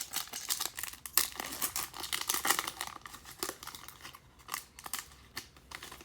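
Foil wrapper of a baseball card pack being torn open and crinkled, with the cards then slid out and handled. The dense crackle is busiest for the first few seconds, then thins to scattered clicks.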